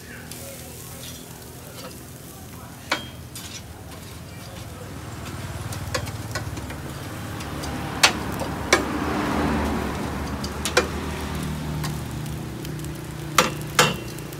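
Meat sizzling on a charcoal grill, with sharp clinks of metal tongs against the grill grate every few seconds as the pieces are turned; the sizzle swells toward the middle.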